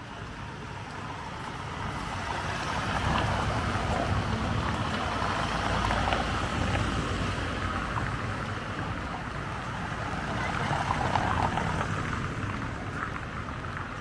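A van driving past over a cobbled street: tyre rumble and engine noise swelling over a few seconds and then fading, followed by a second swell of passing traffic noise near the end.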